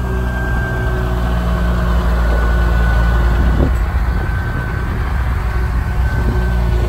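Hino 2635 truck's diesel engine running at low revs, a steady low drone, as the tractor unit rolls slowly forward pulling a loaded tanker semi-trailer.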